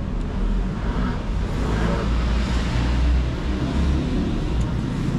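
Road traffic: a motor vehicle passing on the street, a low rumble that swells to its loudest about halfway through and then eases off.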